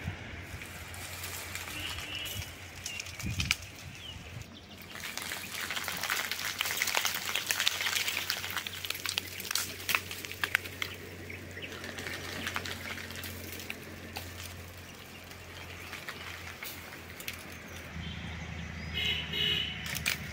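Tamarind tree branches being shaken, with leaves rustling and dry tamarind pods pattering and clicking as they fall. The rustle and clatter builds about five seconds in and is thickest for the next several seconds before easing off.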